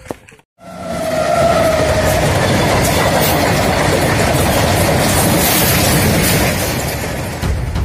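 A freight train rolling past close by, with a loud, steady rumble and rattle of wagon wheels on the rails. It rises in after a moment of silence, carries a brief high ringing note about a second in, and eases slightly near the end.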